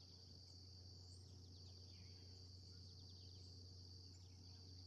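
Faint outdoor ambience: a steady high-pitched cricket trill, with a few faint bird chirps, over a low steady hum.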